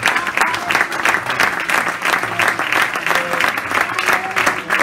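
Roomful of people applauding, dense, steady clapping throughout.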